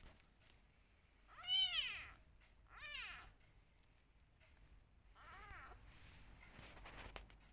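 Young kitten meowing three times, each meow rising then falling in pitch, the first the loudest: a hungry kitten calling at bottle-feeding time.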